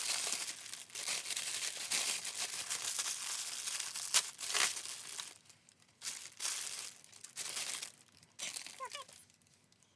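Packaging crinkling and rustling as it is handled and torn open, with a sharp snap about four seconds in. In the second half the rustling breaks into short separate bursts.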